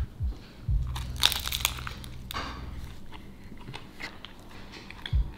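A person biting into and chewing a chicken and lettuce tortilla wrap: a few crunchy bites and chews with the tortilla crinkling.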